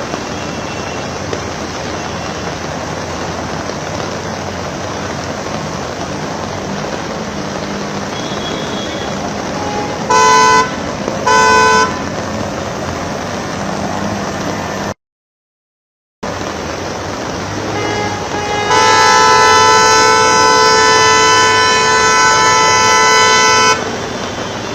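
Steady road-traffic noise with rain hiss in heavy rain. A car horn honks twice briefly about ten seconds in, then a long horn blast of about five seconds follows near the end. The sound cuts out completely for about a second in between.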